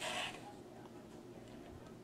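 A short paper rustle as a page of a folded paper pamphlet is turned, followed by quiet room tone with a faint steady low hum.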